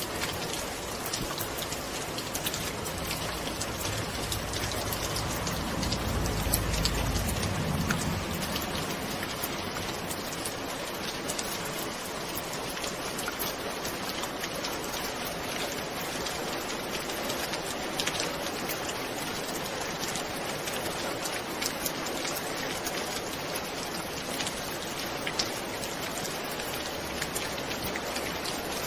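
Steady heavy rain falling, with individual drops striking a surface as sharp ticks. A soft, deep rumble of distant thunder swells and fades about five to eight seconds in.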